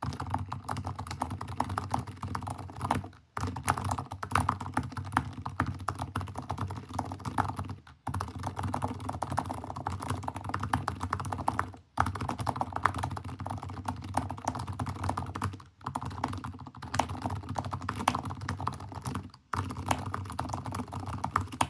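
Fast typing on a Keychron K8 Max mechanical keyboard fitted with TTC Silent Bluish White switches. The keystrokes come in dense runs, broken by brief pauses every few seconds, and stop near the end.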